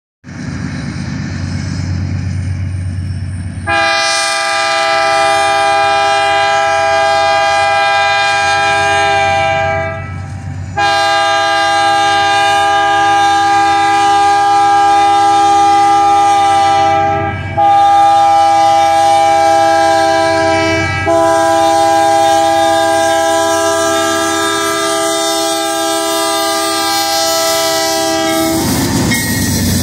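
GE C44-9W (Dash 9) diesel locomotive blowing its multi-note air horn in four long blasts, the third shorter, in the long-long-short-long pattern sounded for a grade crossing. The horn starts about four seconds in over the low rumble of the locomotives and train, and stops just before the end, leaving the rumble of the passing engines and cars.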